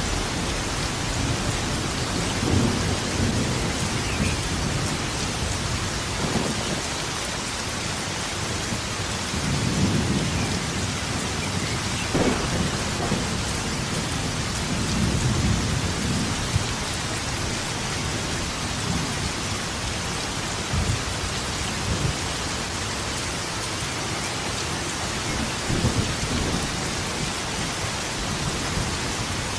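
Steady rain falling, with low rolls of thunder rumbling several times across it.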